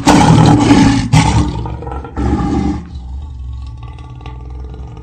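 Lion roar sound effect: a loud roar at the start, a second shorter roar about two seconds in, then a quieter tail that dies away.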